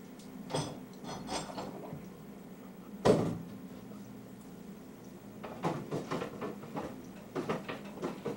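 Scattered knocks and clinks of objects being handled, with one loud knock about three seconds in and a quick run of clicks near the end, over a low steady hum.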